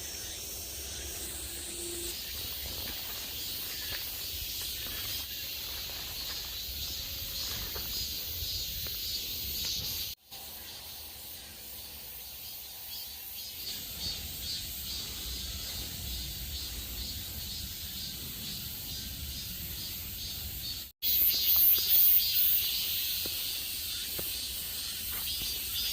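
Insects chirping steadily in a high, pulsing chorus that cuts out briefly twice.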